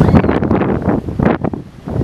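Wind buffeting the microphone in irregular gusts.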